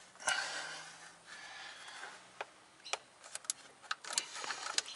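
Hand tool with a hex bit working the Allen-head bolts on an engine coil cover: a soft rustle of handling, then a scattering of short sharp metallic clicks from about halfway through.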